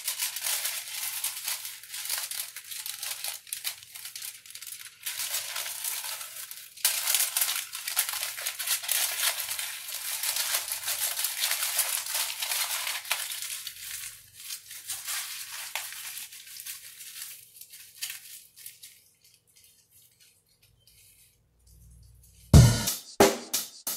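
Aluminium foil crinkling irregularly as a sheet is folded around a strand of hair by gloved hands. It stops about 18 seconds in, and near the end loud music with a heavy beat starts.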